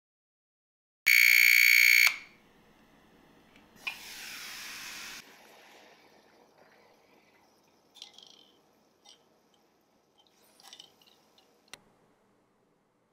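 A loud electronic alarm tone sounds for about a second. A short hiss follows, then a few light clicks and taps as eggs are set into the rack of an electric egg cooker.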